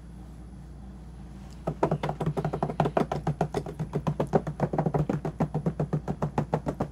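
Hands drumming fast on a tabletop, about seven quick knocks a second, starting a little under two seconds in over a low steady room hum.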